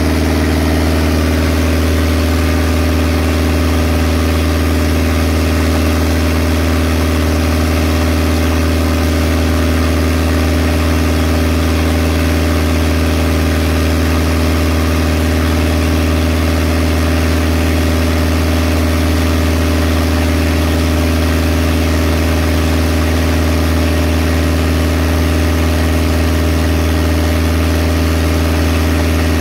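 Engine of a deck water pump running at a steady speed, with the hiss of a high-pressure water jet washing oyster seed shell overboard.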